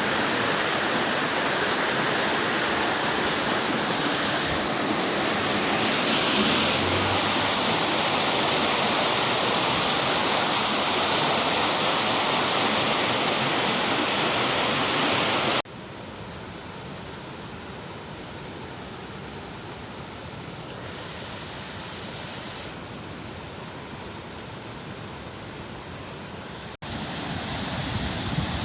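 Steady rushing of a flowing river. It drops suddenly to a quieter rush about halfway through and comes back louder near the end.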